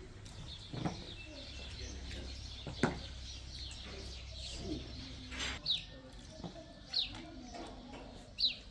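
A small bird chirping: short, high, falling chirps repeated about every second and a half in the second half, with a few sharp knocks earlier.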